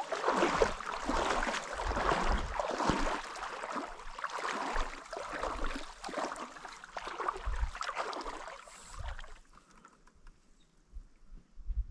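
Oars dipping and splashing as a small boat is rowed through the water. The splashing dies down about nine seconds in.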